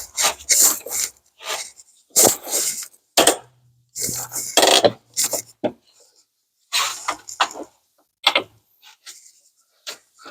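Metal hand tools and sockets clinking, scraping and rattling in short irregular bursts while bolts are worked loose.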